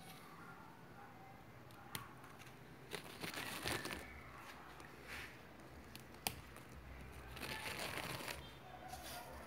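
Faint, intermittent rustling and crinkling, with two sharp clicks: one about two seconds in and one just after six seconds.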